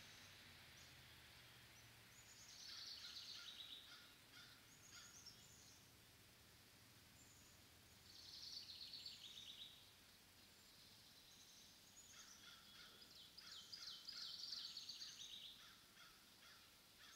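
A songbird singing faintly in three spells of rapid, high, trilling notes, each lasting a couple of seconds.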